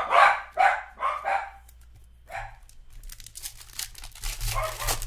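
A dog barking: a quick run of about four barks in the first second and a half, then one more about two and a half seconds in. After that comes the crinkling and tearing of a foil trading-card pack wrapper being opened.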